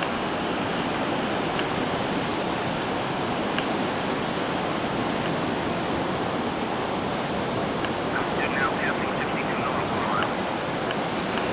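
Steady wash of surf breaking on the beach, an even rushing noise with no change in level.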